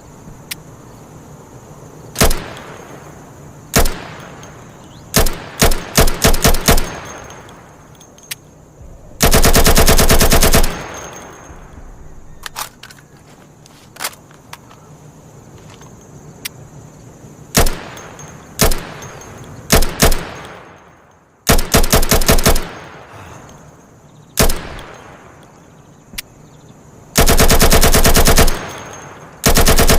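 AKMS assault rifle (7.62×39mm) firing: single shots and short bursts, with two long fully automatic bursts of about a second and a half, one about a third of the way in and one near the end.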